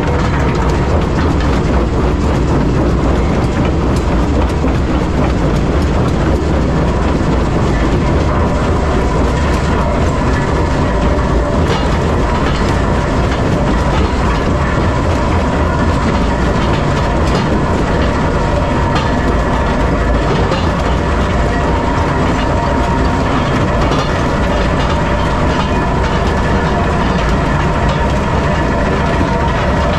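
Metso C130 jaw crusher running and crushing blasted limestone: a steady heavy rumble with a constant high hum, and scattered sharp knocks of rock being broken between the jaws.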